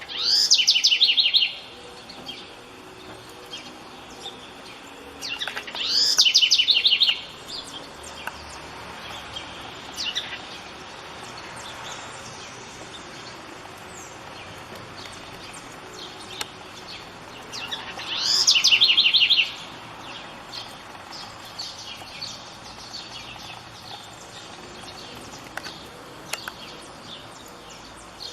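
Southern house wren (curruíra) singing three times, each song about a second and a half long: a quick falling phrase that runs into a rapid bubbling trill. The songs come at the start, about six seconds in, and about eighteen seconds in, with faint chirps between them.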